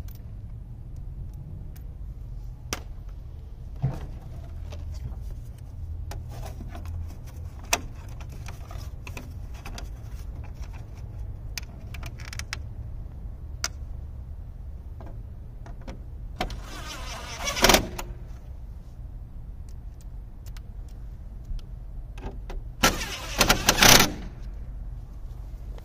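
A plastic license plate frame with a built-in backup camera being handled and fitted over a license plate on a van's door: scattered light clicks and taps, and two louder bursts of rattling plastic, one about two-thirds of the way through and one near the end.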